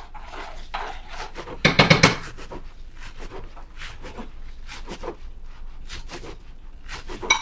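Knife chopping scallions on a cutting board in short, uneven strokes, with a louder run of knocks about two seconds in.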